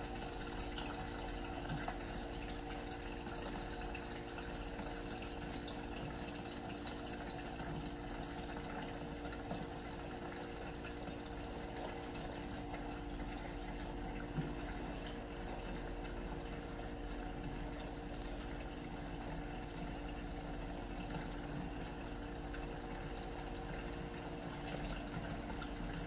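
General Electric Spacemaker portable top-load washer filling its tub with water from the bottom up: a steady rush of running water with a constant low hum under it.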